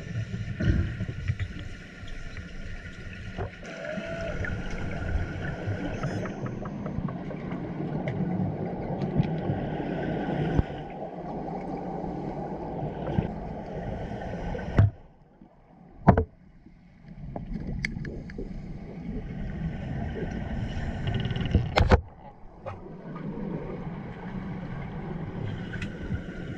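Muffled underwater sound of a diving pool picked up by a camera in the water: a continuous rumbling wash with faint steady tones. It cuts out abruptly about fifteen seconds in and again about twenty-two seconds in, with a sharp knock at each break.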